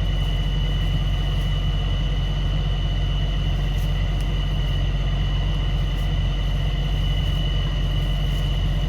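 Tow truck engine running steadily at a constant speed, a low drone with a thin steady high whine over it.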